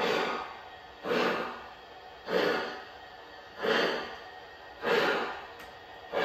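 Model steam locomotive's sound chuffing slowly and evenly: a sharp puff of exhaust about every 1.2 seconds, each fading before the next.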